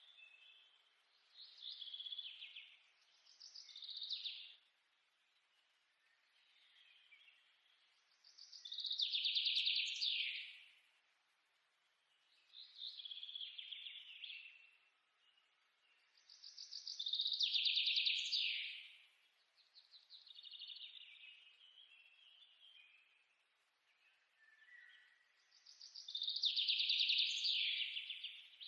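Bird song: a series of chirping, trilling phrases, one every two to four seconds, the loudest of them fast trills that slide downward.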